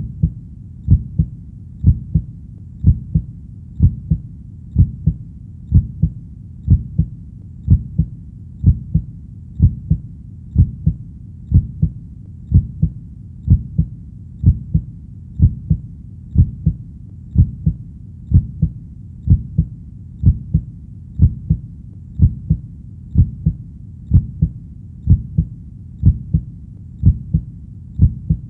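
Human heartbeat sound: a steady, slow lub-dub, pairs of low thumps repeating about once a second over a constant low background.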